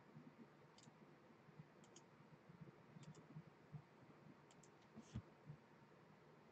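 Faint clicks of a computer mouse, single and double, about once a second, over near-silent room tone.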